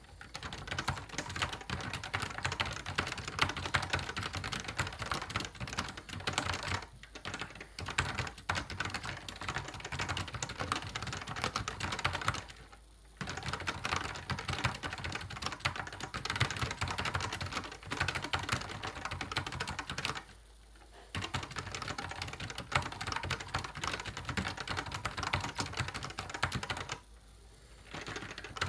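A Fujitsu FMV-KB611 keyboard with Fujitsu leaf-spring linear switches being typed on quickly, a dense stream of key clacks that stops for about a second three times.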